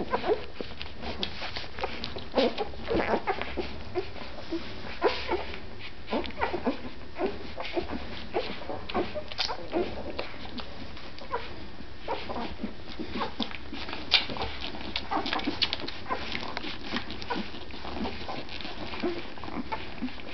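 Newborn Irish Wolfhound puppies squeaking and whimpering in short, irregular bursts while nursing, with many small clicks of suckling.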